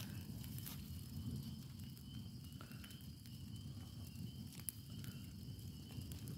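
Cardboard boxes and paper burning in a large open fire: a steady low rumble of flames, with a few sharp crackles, the loudest about two-thirds of the way through.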